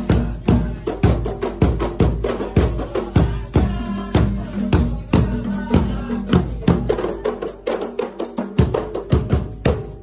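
Drum-led percussion music accompanying a silat display, beaten in a steady rhythm of about two strong strikes a second.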